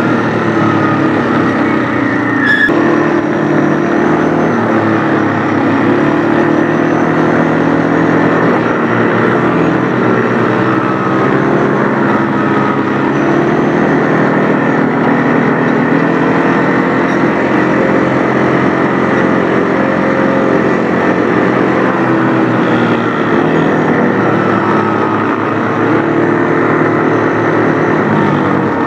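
Quad bike engine running steadily under way along a dirt track, heard close up from on board the machine, its pitch rising and falling gently with the throttle. A single short knock about two and a half seconds in.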